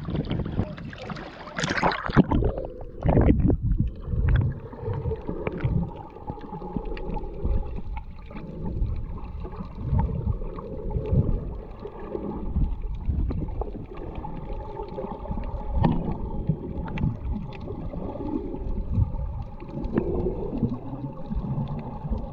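Water splashing at the surface as an action camera goes under about three seconds in, then muffled underwater sound: irregular low sloshing and rumbling of snorkelers swimming, with a faint steady hum underneath.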